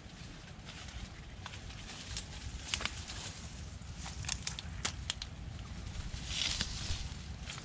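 Mangrove leaves rustling and dry twigs crackling and snapping as someone pushes through the bushes on foot over muddy ground, with irregular sharp cracks and a louder rustle near the end, under a steady low rumble.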